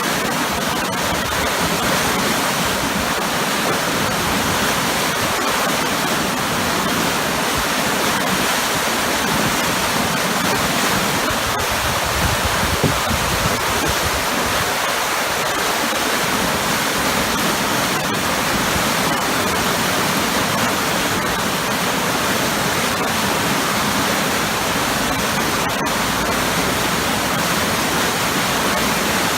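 Powerful waterfall: a steady, loud rush of falling water churning into heavy swirling eddies below.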